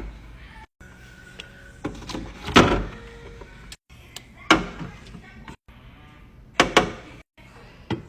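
A string of sharp knocks and clatters of containers and food items being handled and set into a refrigerator, about one every second or two, broken by abrupt cuts.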